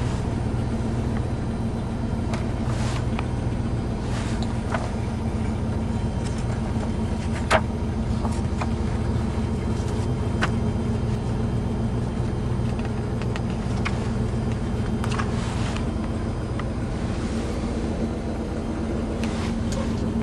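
Warmed-up Dodge 318 V8 of a 1979 Dodge pickup idling smoothly and steadily ("purring like a kitten"), heard from inside the cab. There are a few soft paper rustles, and one sharp click about seven and a half seconds in.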